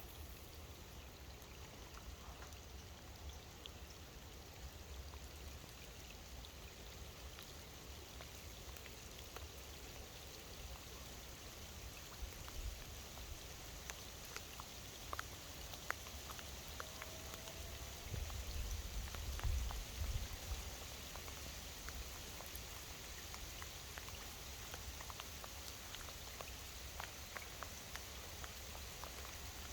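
Rain falling on the riverbank: a steady hiss with scattered individual drops ticking. A low rumble swells and fades about two-thirds of the way through.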